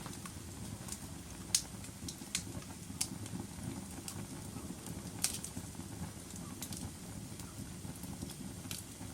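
Wood fire crackling in a fireplace: a low steady rumble of flames with scattered sharp pops, the loudest about one and a half seconds and five seconds in.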